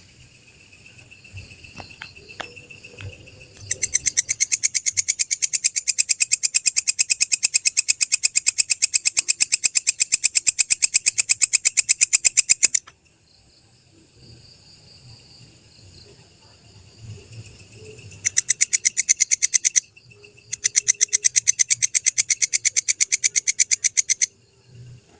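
Walang kecek (belalang kecek) grasshopper calling: a long run of fast, even, high-pitched clicks lasting about nine seconds, then after a pause two shorter runs near the end.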